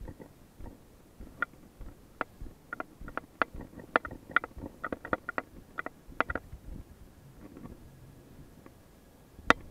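Irregular run of sharp clicks with a short ringing tone, packed most densely in the middle and ending with one loud click near the end: a fishing reel clicking under load while a hooked hiramasa (yellowtail amberjack) is fought from the kayak.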